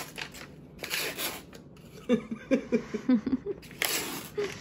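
Paper wrapper being peeled and torn off a cardboard tube of refrigerated biscuit dough, scratchy ripping in short pulls. About two seconds in comes a quick run of short bursts of laughter.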